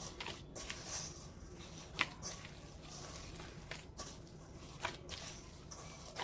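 Hands kneading sticky tamarind pulp with sugar: soft squishing and rustling, with a few light clicks, the clearest about two seconds in.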